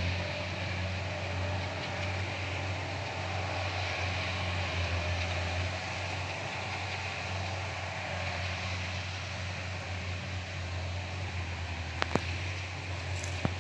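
Kubota DC70 combine harvester's diesel engine running steadily, with a few sharp clicks near the end.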